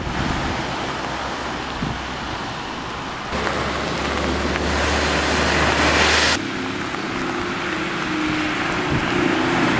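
Vehicles driving through deep floodwater in heavy rain: a continuous rushing hiss of tyre spray and rain. In the middle it turns louder and brighter as an SUV throws up sheets of spray over a low engine hum, and near the end a bus's engine drones steadily under the rain as it ploughs through the water.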